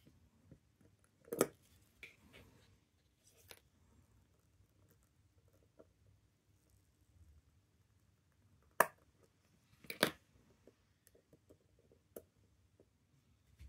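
Small metal clicks and taps of a screwdriver and tweezers working the ratchet and click of a Seiko 6138 chronograph movement as its mainspring is let down. Three sharper clicks stand out: about a second and a half in, and twice more around nine and ten seconds in.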